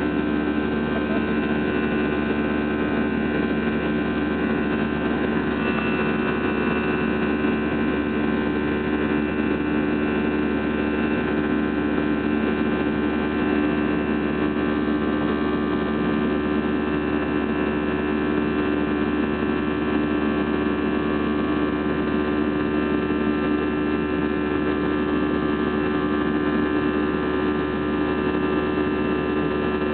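Cabin noise inside an Airbus A320 climbing after takeoff: the jet engines give a steady drone with several held tones over an even rush of air.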